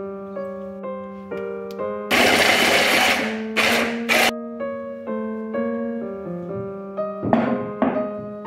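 An electric hand-blender's mini chopper runs in pulses, chopping zucchini and onion: one burst of about a second starting about two seconds in, then two short pulses. Piano background music plays throughout, with two more brief noises near the end.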